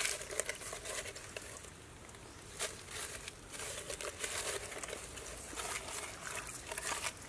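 Wet crackling and tearing as hands pull strips of fat and membrane out of the inside of a gutted pig carcass, with many small clicks and a brief lull about two seconds in.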